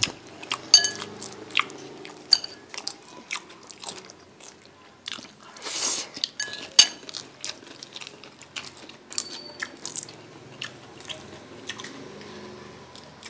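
Cutlery clinking against plates and bowls in scattered sharp clicks, some ringing briefly, mixed with chewing and crunching of food, and a short louder crunch or scrape about six seconds in.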